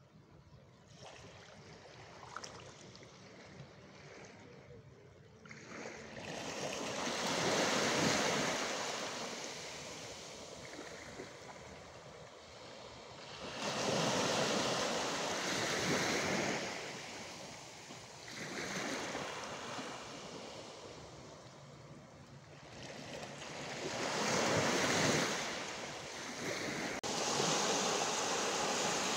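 Small sea waves breaking and washing onto the shore, the rush swelling and fading away about four times, quieter for the first few seconds.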